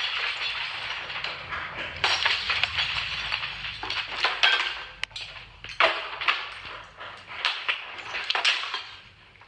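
Ceiling fan being smashed apart: repeated crashes and clinking impacts of breaking parts, in several bursts.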